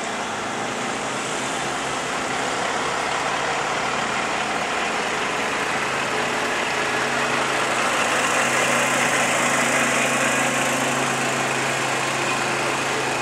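Engines of heavy-haul convoy vehicles running with a steady low hum under a noisy wash as the oversize load passes close by. The sound grows louder through the middle and eases slightly near the end.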